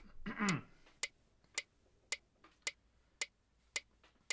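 Yamaha digital keyboard's built-in metronome clicking steadily at 110 beats per minute, starting about a second in. Just before it, there is a short vocal sound that falls in pitch.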